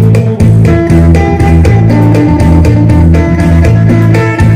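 Electric guitar played phin-style (after the Isan lute), picking a quick, bouncing melodic line over a steady low beat about twice a second.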